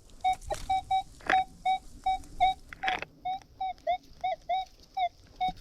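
Minelab Manticore metal detector giving a rapid train of short beeps, about four a second, some warbling in pitch partway through: the detector answering a buried target under the coil. A couple of brief scuffs are heard among the beeps.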